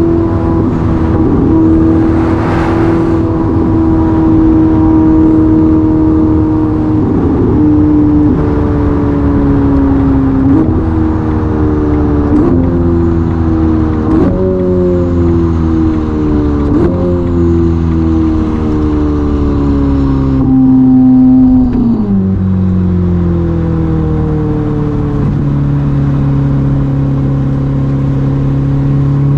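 Ferrari SF90's twin-turbo V8 with a Novitec sport exhaust, slowing down: the engine note falls steadily and is lifted back up by a series of downshifts about every two seconds, then drops sharply to a low steady note about three-quarters of the way in.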